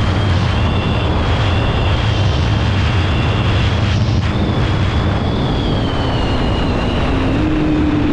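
KTM Duke 390's single-cylinder engine running hard at high speed with heavy wind rush, and a thin high whine over it. The whine breaks off briefly about four seconds in, then falls in pitch as the bike slows in the second half.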